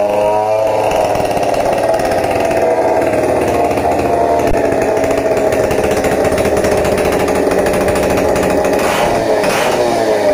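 Stihl MS 070 chainsaw, a big single-cylinder two-stroke, running loud and steady with the throttle blipped so its pitch rises and falls.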